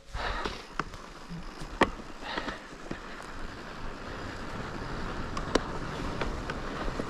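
Wind rumbling on the microphone, a steady low noise, with a few short sharp clicks and ticks scattered through it.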